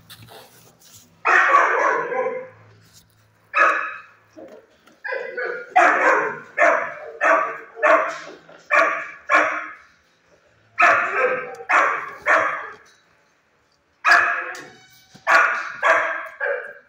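A dog barking over and over, in bouts of several loud barks about two a second with short pauses between them.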